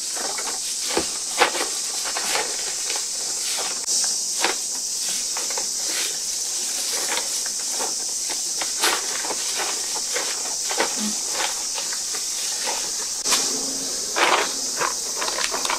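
Steady, high, sizzling drone of summer cicadas, with soft scattered taps and rustles as plums pickled in plum vinegar are set down on a bamboo sieve basket by a gloved hand, and a plastic zipper bag crinkling near the end.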